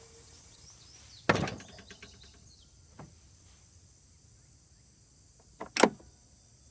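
Sharp clicks of switches being thrown as the riding mower's 48-volt electric drive system is powered up: one clack about a second in with a brief rattle, a faint tick, then a louder double click near the end. Crickets chirp steadily in the background.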